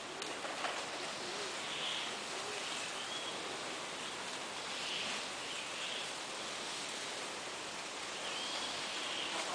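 Steady outdoor background hiss with short, faint high chirps recurring every second or two.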